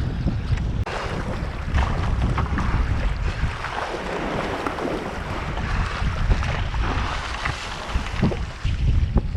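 A strong 30–40 knot westerly buffets the microphone with a heavy rumble throughout. Over the rumble comes the rushing of waves and spray, loudest in the middle of the stretch.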